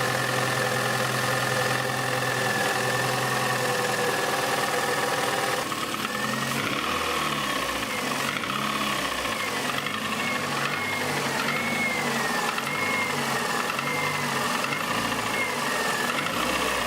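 Toyota Highlander 2.4-litre four-cylinder engine running with a knock, which the mechanics put down to a worn piston pin in cylinder 3. It holds a steady speed at first; about six seconds in, the engine speed starts rising and falling over and over, about once a second.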